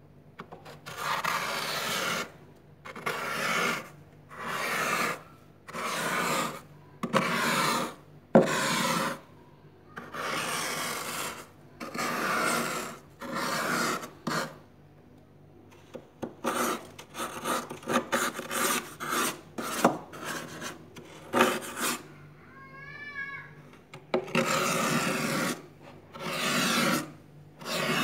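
Metal spoon scraping frost off the inside wall of a freezer, in repeated scraping strokes about one a second. After a short pause midway the strokes come quicker and shorter.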